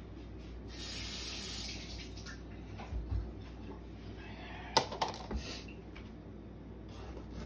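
Kitchen tap running for about a second and a half as a bell pepper is rinsed under it, followed by a couple of dull thumps and one sharp knock near the middle.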